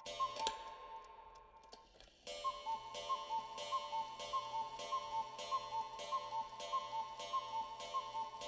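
A clock ticking steadily, about two ticks a second, with tick and tock at slightly different pitches. The ticking fades and breaks off about two seconds in, then starts again.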